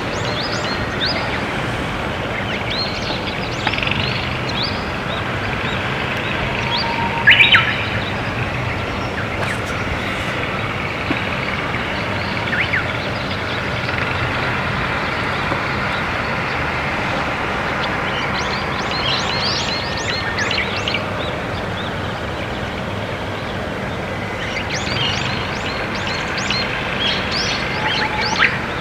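Wild songbirds chirping and singing over a steady background hiss, with one loud two-note call about seven seconds in, the crow of a green pheasant.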